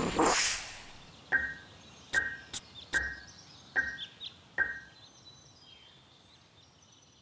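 Cartoon sound effects: a whoosh that fades over the first second, then five short, bright pings at an even pace, about one every 0.8 s, with a few sharp clicks among them. Faint bird-like chirps follow near the end.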